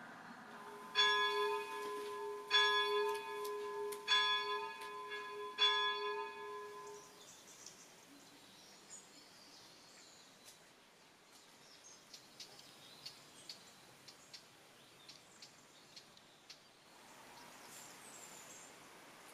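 Church bell striking four times, about a second and a half apart, each stroke ringing on with a steady hum that dies away a couple of seconds after the last.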